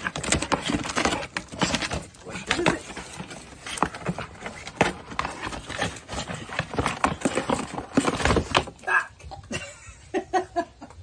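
A pug tearing into a cardboard shipping box: rapid ripping, crackling and knocking of cardboard, which dies away near the end.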